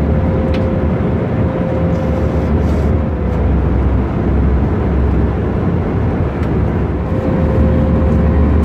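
Steady cabin noise of a CFM56-powered Airbus A320-214 in flight, heard from a window seat: an even rush of engine and airflow noise with a low drone and a thin steady hum running through it.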